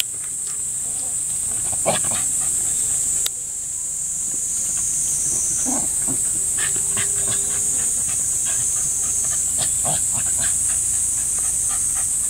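A Shiba Inu and a slender grey sighthound play-fighting, with short, scattered dog vocalisations and scuffling over a steady high hiss.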